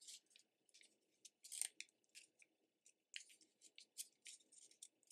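Faint, irregular crinkling and rustling of a paper cover around wrapped chocolates being handled and adjusted, the loudest crackle about one and a half seconds in.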